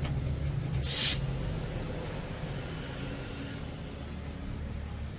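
A heavy crane truck's engine idling with a steady low hum, and a short, sharp burst of hissing air about a second in, like an air brake or air line venting.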